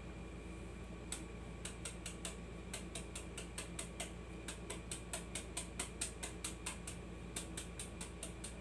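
Knife slicing through fresh bamboo shoot held in the hand, a run of short crisp cuts about three a second, starting about a second in.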